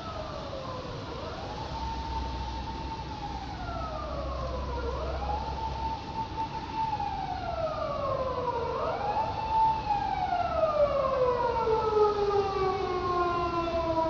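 Emergency vehicle siren wailing, rising, holding and falling in slow cycles about every four seconds, getting louder toward the end, where the last wail slides down lower than the others.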